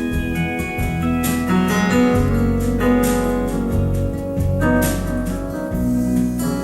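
Live band music, an instrumental break led by keyboard chords that change every second or two, with sustained low notes underneath and a few sharp hits.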